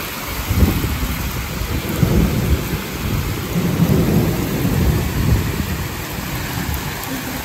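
Heavy rain pouring down in a storm, a steady hiss under a low rumbling that swells and fades, strongest in the middle.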